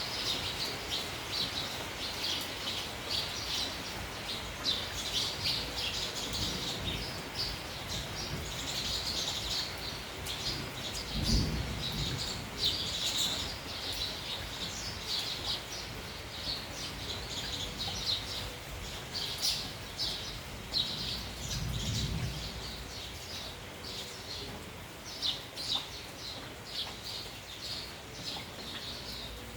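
A flock of sparrows chirping busily in quick, overlapping high chirps over a steady hiss of rain and wind. Twice a brief low rumble comes through, about a third and two thirds of the way in.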